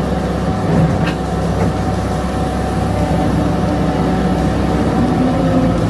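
Skid steer loader's engine running steadily under load, with a steady whine over it and a brief knock about a second in.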